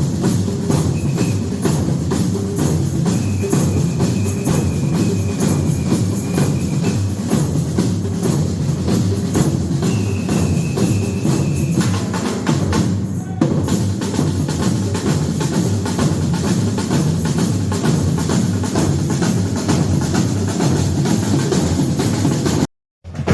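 Batucada drum group playing a dense, driving samba rhythm on bass drums and other percussion. A high steady whistle-like tone is held several times in the first half. The playing breaks off abruptly about halfway, and there is a brief drop to silence near the end.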